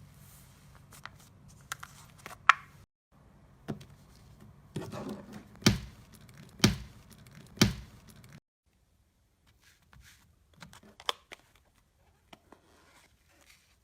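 Slime being handled close to the microphone: crinkly crackling, small sharp clicks and squishes, with three loud thuds about a second apart near the middle.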